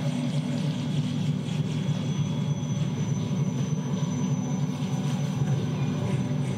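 Steady low drone of an ambient electronic soundscape, unchanging in level, with a faint high thin tone above it.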